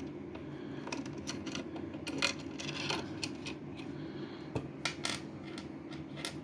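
Small metal parts clicking and clinking irregularly as a 5.5 mm socket and the small threaded posts holding the circuit board are handled and unscrewed, over a low steady hum.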